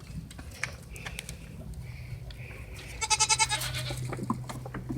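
A goat bleating: one loud, quavering bleat about three seconds in, with fainter calls and small clicks around it.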